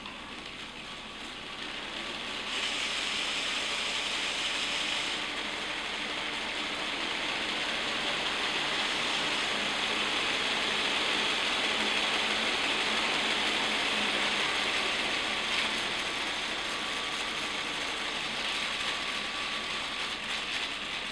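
Lego Technic electric motor running a Lego V-22 Osprey model's plastic gear train, a steady whirring gear noise. It builds over the first couple of seconds and holds steady.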